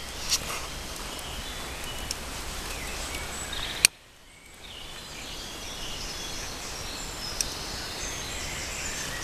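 Steady outdoor background noise with small clicks and rustles of dry shavings and twigs being handled at a tiny fire being lit. A single sharp click comes about four seconds in.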